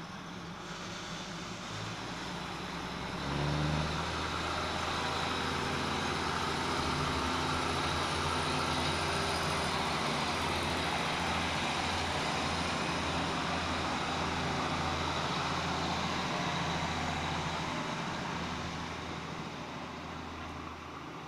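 Diesel multiple-unit passenger train pulling away under power: a low engine drone that swells about three seconds in, over the steady rumble and hiss of wheels on rails, easing off near the end as it moves away.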